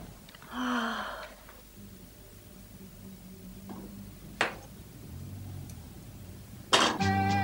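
Quiet room with a brief low vocal sound, like a sigh or murmur, near the start and a single sharp knock about halfway through. Near the end the music cuts in with a sharp attack: lively traditional folk music.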